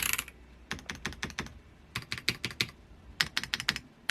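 Keys on a Royal Kludge mechanical keyboard being pressed in three quick runs of clicking keystrokes.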